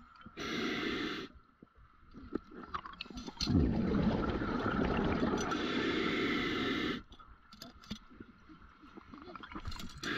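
Scuba diver breathing through a regulator underwater: a short hiss of breath near the start, then a longer rush of exhaled bubbles lasting about three and a half seconds that cuts off sharply.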